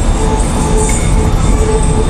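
PHX Sky Train, a rubber-tyred automated people mover, running along its concrete guideway: a steady low rumble with a steady hum, heard with music.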